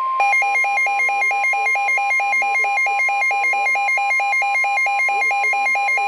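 NOAA weather radio alarm for a severe thunderstorm warning. The broadcast's steady 1050 Hz warning alarm tone sounds throughout. From a fraction of a second in, the receiver's own alert beeps rapidly over it, switching between pitches several times a second.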